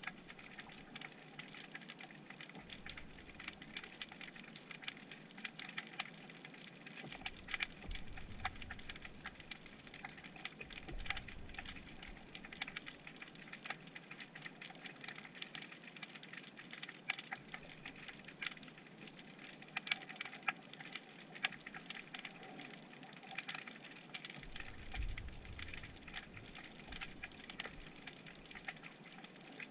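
Underwater crackle of many irregular sharp clicks and snaps, the sound of snapping shrimp on the bottom, heard through the camera's waterproof housing, with a few low rumbles.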